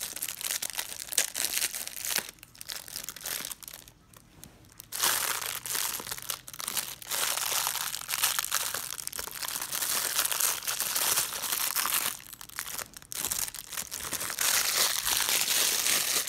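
Toy packaging crinkling and tearing as it is handled and opened, in irregular rustling bursts, with a quieter pause about four seconds in.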